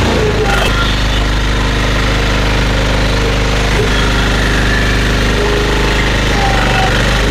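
Engine driving a hydraulic firewood splitter, running steadily at a low, even speed.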